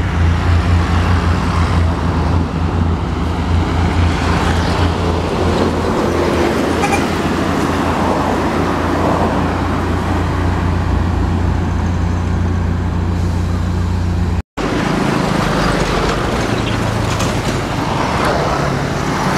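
Road traffic running past, with a steady low engine hum under the road noise. The sound cuts out for an instant about three-quarters of the way through.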